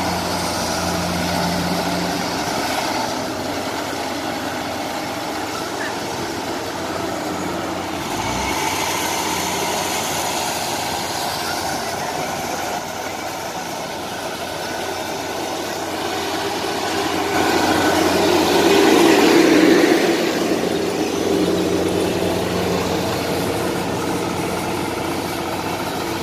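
Rice combine harvester running steadily with a low engine drone. It grows louder for a few seconds about two-thirds of the way through, then eases back.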